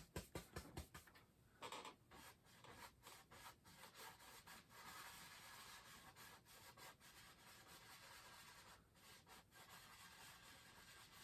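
Faint brush strokes on canvas: a paintbrush rubbing white oil paint wet-on-wet, short quick strokes at first, then softer steady rubbing.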